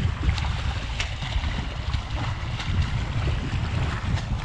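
Wind buffeting the microphone as a steady low rumble, with a few short splashes from a swimmer's front-crawl strokes and a kayak paddle in the water.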